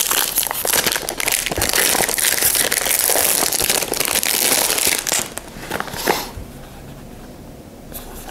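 Plastic wrapping on a perfume box being torn off and crumpled by hand: loud crinkling and crackling for about five seconds, with one more burst about six seconds in.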